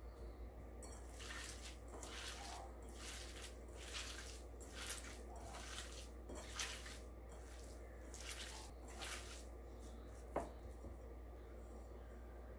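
Soft wet squishing of a hand kneading and squeezing a tuna, tofu and chopped green onion filling in a ceramic bowl, about two squeezes a second, stopping a little before a single sharp click near the end.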